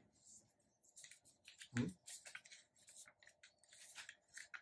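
Sheets of paper being handled, folded and creased by hand: soft rustles, crinkles and scrapes of paper sliding on a tabletop, with one louder, dull sound about two seconds in.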